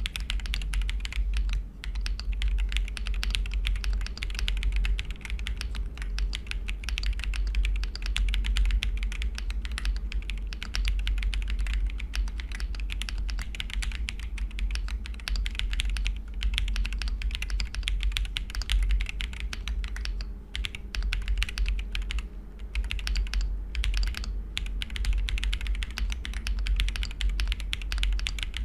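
Continuous fast typing on an M1W sand-blasted mechanical keyboard fitted with Akko switches: a dense clatter of keystrokes with a few brief pauses.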